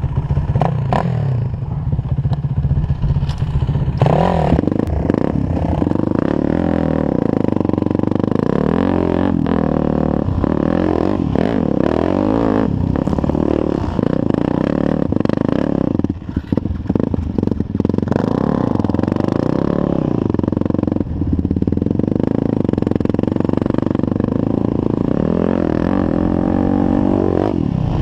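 Yamaha sport ATV engine idling steadily for about four seconds, then revving and pulling away. Its pitch rises and falls with throttle and gear changes for the rest of the ride, with a brief drop about halfway through.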